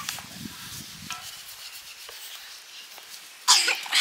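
Food being stirred in a hot pan, sizzling, with a few clicks of the spoon against the pan. A much louder burst of scraping and sizzling comes in near the end.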